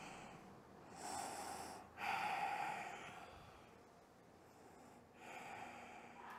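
A woman breathing audibly while holding a seated yoga balance pose: slow breaths, about three in all, with a near-silent pause in the middle.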